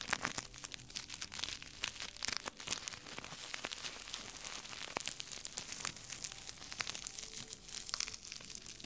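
Flip sequins on a small sequin star being rubbed and brushed with fingertips: a dense, continuous run of tiny clicks and crinkly scratching.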